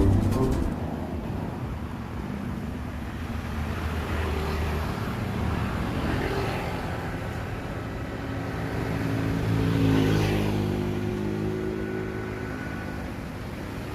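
Motor vehicles passing on a road, one after another, the loudest about ten seconds in, with an engine's drone rising and falling as it goes by.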